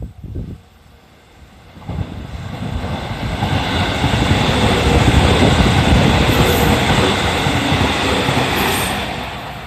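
313 series electric train passing at reduced speed for track maintenance work. Its running noise builds from about two seconds in, is loudest midway and fades near the end.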